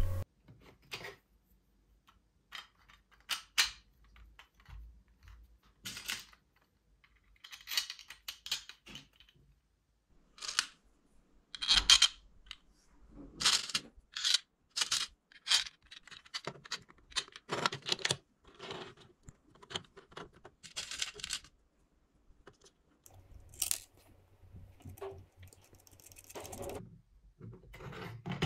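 3D-printed plastic tank parts being handled and fitted together by hand: scattered, irregular clicks, taps and clatters of plastic on plastic, with short quiet gaps between them.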